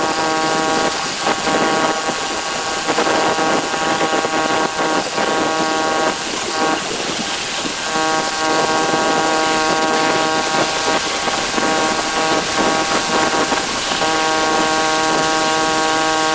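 Pressure washer running, its motor giving a steady hum under the rough hiss and spatter of the spray. The hum comes through plainly about halfway through and again near the end, when the spray noise drops away.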